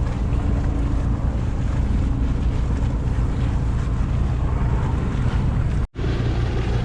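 Wind buffeting the microphone and water washing past a sailboat under way, a steady loud low rumble. The sound cuts out for an instant near the end, then carries on.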